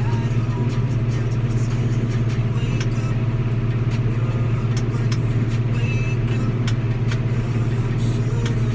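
John Deere 6140M tractor's diesel engine droning steadily under load, heard inside the cab while mowing cover crops.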